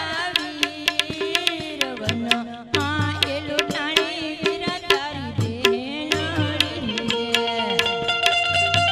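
Live Indian folk devotional music: a drum keeps a quick, steady beat under a melody whose notes slide and waver in pitch.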